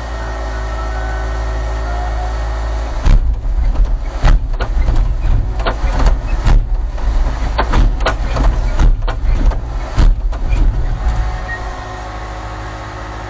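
Diesel engine of a CAT compact track loader idling steadily, with a run of loud, irregular knocks and clatters from about three seconds in until about eleven seconds.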